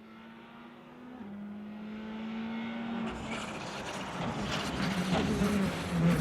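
Rally car approaching on a closed asphalt stage, its engine getting steadily louder. Its pitch steps down about a second in at a gear change, and from about three seconds in it is much closer, louder and rougher, with sharp crackles.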